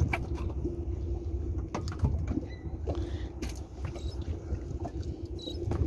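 Boat motor running at idle with a steady low hum, with scattered light knocks and taps of fish being handled at the gunwale.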